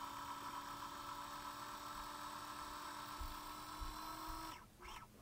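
Faint, steady motor hum of a Singer 6215C sewing machine running its bobbin winder, stopping about four and a half seconds in.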